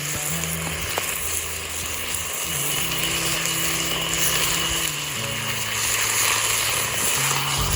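Background music with held low bass notes that change every second or two, over a steady hiss.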